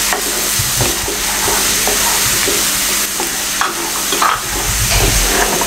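Chopped garlic sizzling steadily in hot oil in a metal pan while a wooden spatula stirs it, scraping and knocking against the pan a few times in the second half. The garlic is being lightly sautéed to brown it.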